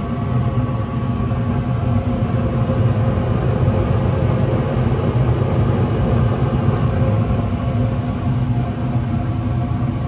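Gas furnace running: the steady hum of its draft inducer motor and burners, with no break or change.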